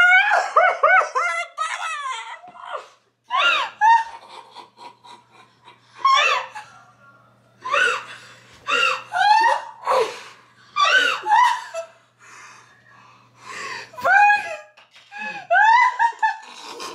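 Person laughing with high-pitched shrieks, in short bursts separated by pauses.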